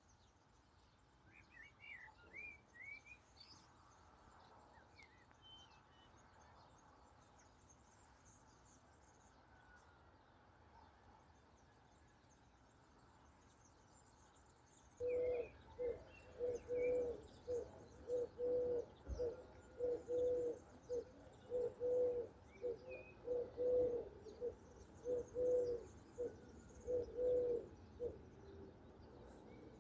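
A few high songbird chirps near the start, then from about halfway a dove cooing close by: a long run of short, low, pure hoots, roughly one and a half a second, lasting until near the end.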